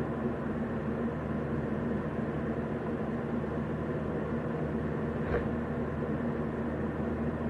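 Steady background hum and hiss with no speech, and one brief faint sound about five seconds in.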